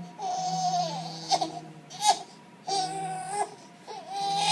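A four-month-old baby crying at a vaccination visit: three long wails with two short sharp cries between them.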